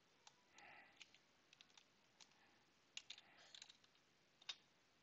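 Faint computer keyboard keystrokes: scattered, irregular clicks as a command is typed.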